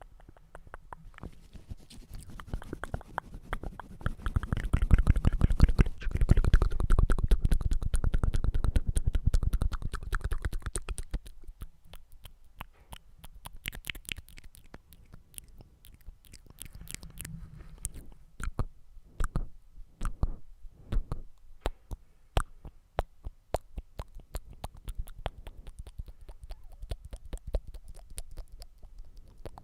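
ASMR mouth sounds made right at the microphone: many quick wet clicks and pops. They are dense and loudest from about four to eleven seconds in, then sparser.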